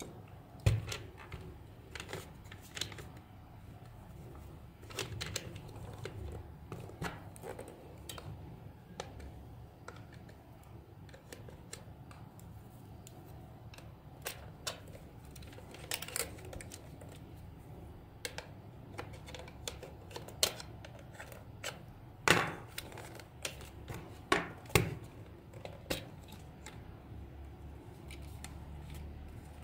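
Plastic toy shell being pried apart at its seam with a pry tool: irregular clicks, taps and scrapes of hard plastic, with several louder snaps about two-thirds through as the halves come free.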